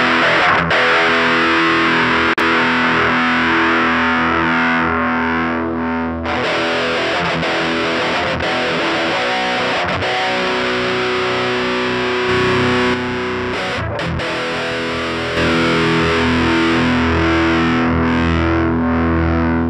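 Electric guitar played through the Line 6 UX2 into the GearBox 'American Punk' amp model, giving a heavily distorted tone. Chords are let ring for several seconds each, changing a few times.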